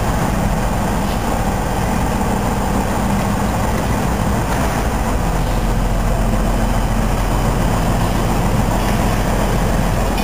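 Diesel switcher locomotive engine running steadily with a low, even hum while the cars are moved for coupling.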